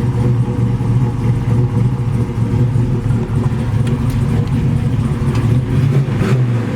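A 355 small-block V8 with a solid-lifter cam idling steadily.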